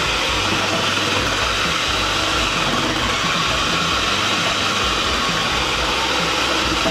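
Joyoung food processor motor running steadily while its shredding attachment cuts white radish (daikon) into shreds.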